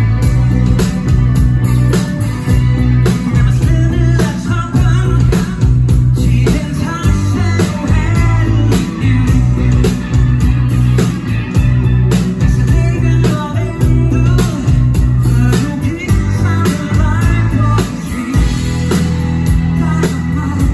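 Live pop-rock band playing: a heavy bass line and kick drum on a steady beat, with electric guitar and keyboard. A male lead vocal comes in and out over the band from about four seconds in.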